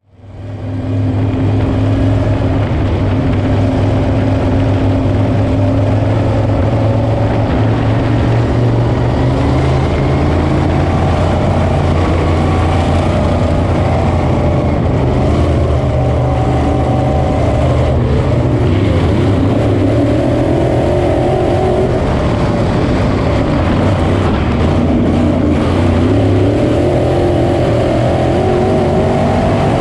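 In-car sound of a 602 Sportsman dirt race car's GM 602 crate V8 running on the track, its pitch wavering up and down a little with the throttle. The sound fades in over the first second.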